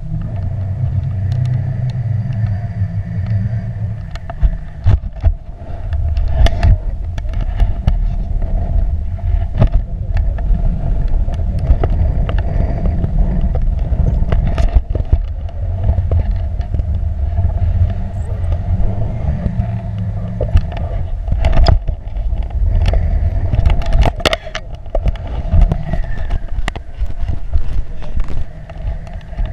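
Wind buffeting an action camera's microphone on a paraglider in flight: a heavy, loud rumble with frequent sharp pops as gusts hit the mic, over a steady mid-pitched hum.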